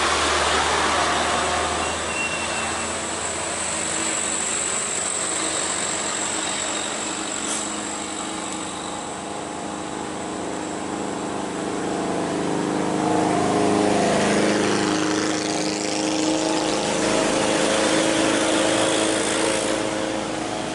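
Road traffic: motor vehicle engines running, with one engine getting louder and shifting in pitch a little past the middle of the stretch.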